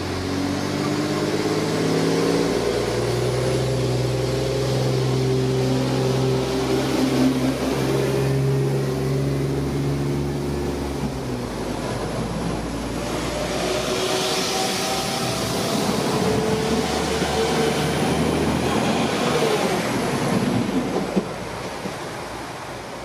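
A railtour train hauled by LMS Black 5 steam locomotive 44871 and Class 47 diesel 47848 passing at speed. A steady, loud engine note comes first, then a rushing run of carriages that fades away near the end.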